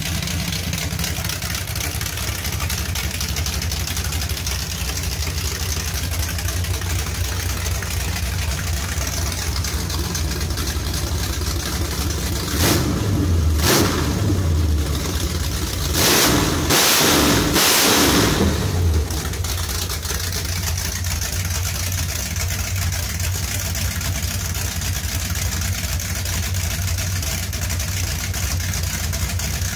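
A 383 Mopar big-block V8 running on an engine stand with open headers and no mufflers. It idles steadily with the cam audible over an exhaust leak, and is revved twice by hand near the middle, the second rev longer.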